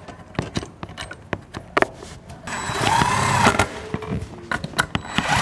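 Scattered metallic clicks and taps of hand work on the ABS pump assembly: parts, bolts and hand tools handled. From about halfway through, a loud hissing whir with a pitch that rises and falls lasts about two seconds.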